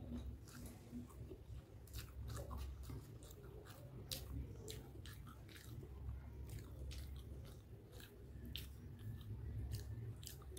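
A person chewing a mouthful of chicken hakka noodles close to the microphone, with many small, irregular wet mouth clicks.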